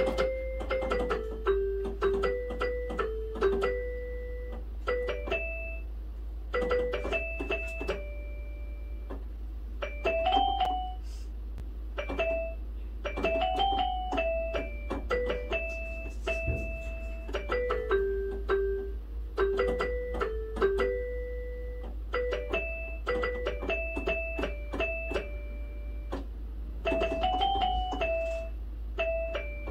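Portable electronic keyboard played by hand: a melody of single notes in a rhythm, with a few held notes and short pauses between phrases, on a voice other than the default piano sound.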